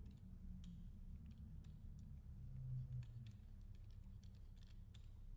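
Faint, scattered light clicks and taps of hands handling an LED headlight driver box and its plastic wiring connectors as it is set into its bracket, over a low steady hum.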